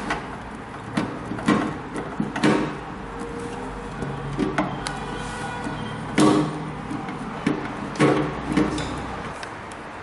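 Scattered knocks and clunks of rotary evaporator parts being handled and fitted during assembly, the loudest a little past halfway.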